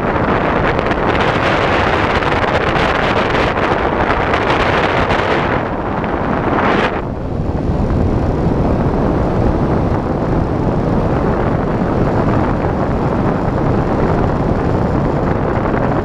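Airflow rushing over an FPV plane's onboard camera microphone: a steady, loud wind noise as the plane glides with its motor drawing almost no current. The higher hiss thins out about seven seconds in.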